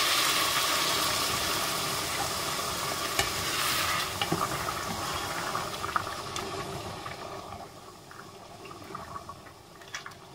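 Boiling water hitting a pot of rice fried in very hot oil or ghee: a loud sizzling hiss that dies down steadily over several seconds. A ladle stirs the rice through the water, with a few light knocks against the pot.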